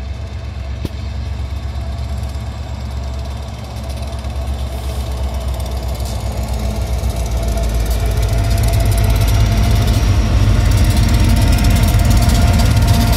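Diesel engines of BNSF freight locomotives rumbling as the train approaches and passes close by, growing steadily louder and peaking near the end.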